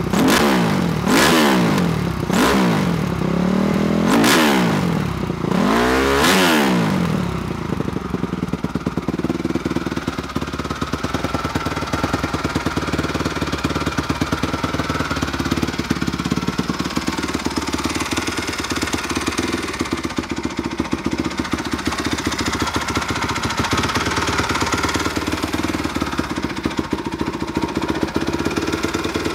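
2007 Honda CRF250R's single-cylinder four-stroke engine, with Pro Circuit dual exhaust, blipped about five times in quick rises and falls of revs over the first several seconds, then idling steadily.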